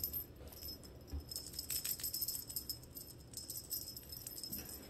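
Small jingle bell tinkling in quick, irregular shakes, as on a cat toy or a kitten's collar.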